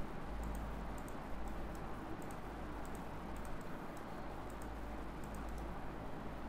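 Computer mouse clicking: a string of light clicks, often in quick pairs, a few each second at irregular spacing, as surfaces are picked one after another for a boolean subtraction. Under it runs a steady low hum.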